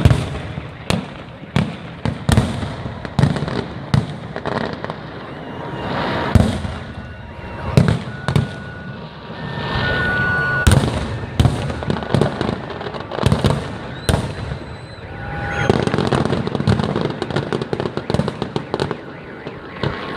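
Fireworks display: a steady run of sharp bangs from bursting shells, with crackling between them. Brief high steady tones sound now and then among the bursts.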